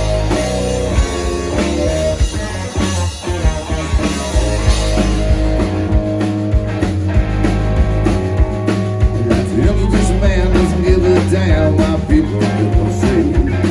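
Live rock band playing an instrumental intro: electric guitar over bass, with the drum kit coming in strongly about five seconds in.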